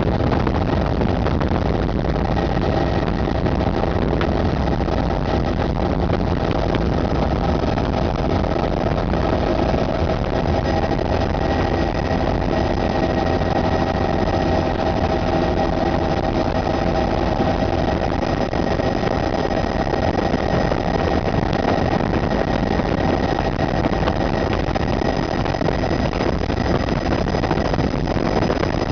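Helicopter turbine and rotor noise heard from inside the cabin with the doors off: a steady drone with high, even whining tones.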